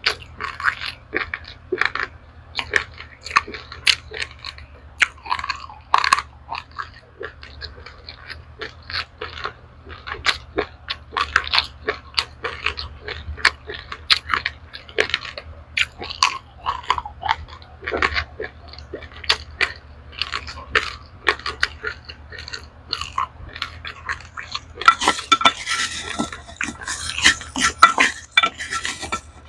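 Close-up crunching and chewing of dry-roasted raw rice grains, sharp crisp crunches several times a second. Near the end, a denser rustling scrape of loose grains being scooped.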